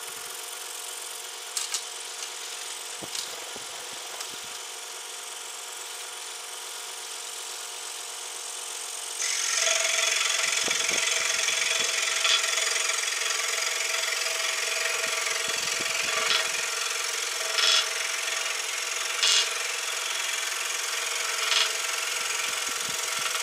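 DeWalt DW788 variable-speed scroll saw running with a quiet steady hum. About nine seconds in the blade starts cutting 3/4-inch walnut, a louder steady rasping. Several short buzzes come through the cut: the workpiece chattering against the table because it is not held down firmly.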